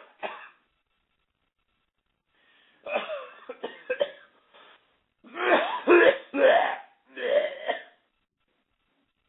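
A person making coughing and throat-clearing noises in several loud fits, the loudest about six seconds in.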